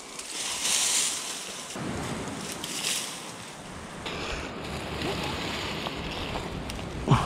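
Dry twigs and brush rustling and crackling as they are gathered by hand, then a steady rush of wind and surf on the shore. A sharp thump near the end is the loudest sound.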